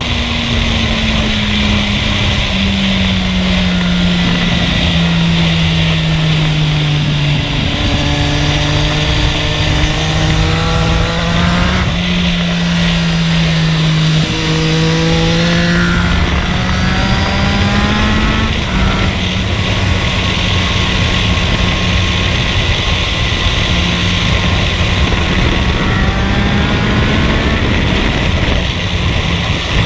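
Yamaha MT-09's three-cylinder engine running on a ride, its note rising and falling gently with the throttle over a steady rushing noise.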